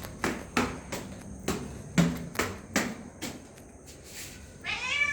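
Footsteps, about eight sharp steps at a walking pace of roughly two to three a second, then a cat meowing near the end.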